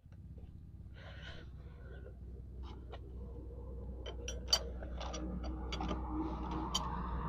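Scattered light metallic clicks and taps of hand tools on the scooter's engine, more frequent in the second half, over a low steady hum.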